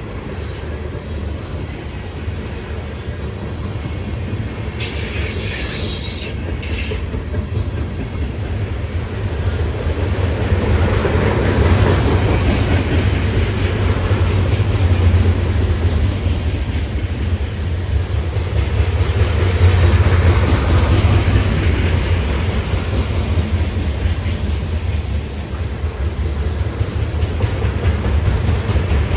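Freight train rolling past, its cars clattering over the rails, the rumble building louder over the first ten seconds or so and then holding steady. Two short high-pitched bursts of noise come about five and six and a half seconds in.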